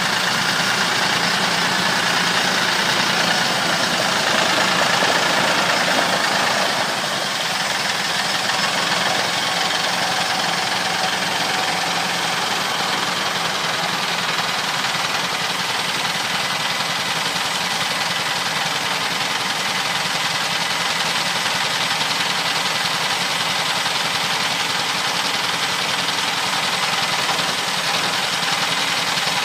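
Home-built sawmill running with a steady engine and machine noise, a little louder for the first seven seconds before settling slightly lower.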